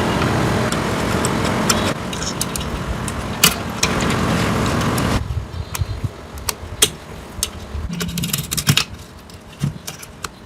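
A machine runs with a steady, noisy whirr for about five seconds, changing abruptly a couple of times, then stops. Scattered sharp clicks and knocks follow.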